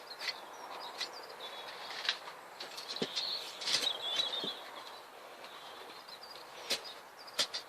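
A spade digging into garden soil, with short scrapes and knocks about once a second. Small birds chirp throughout.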